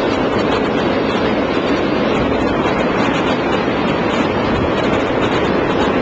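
Strong blizzard wind blowing steadily and buffeting the microphone, a loud, even rush of noise with a low rumble.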